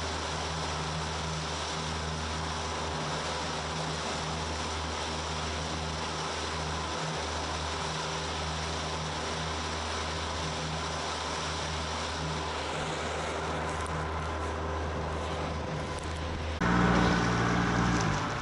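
Yamaha 115 outboard motor running steadily at cruising speed under the rush of wind and water. About two seconds before the end the engine sound jumps louder and richer in tone, then eases off.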